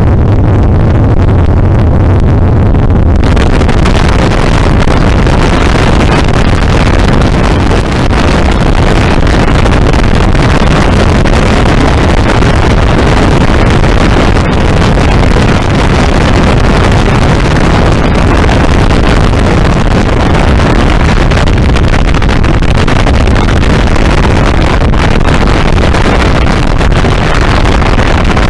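Motorboat running at speed, its engine drone under heavy wind rush on the microphone; about three seconds in the rushing noise swells to fill the whole sound.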